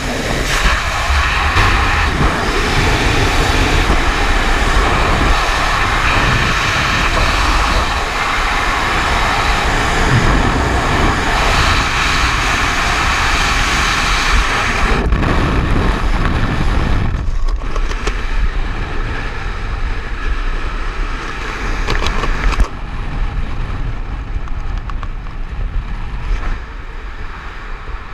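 Strong wind rushing over a skydiver's action-camera microphone, a dense steady roar. It thins out about halfway through and eases a little more over the last few seconds, with the jumper hanging under the open parachute.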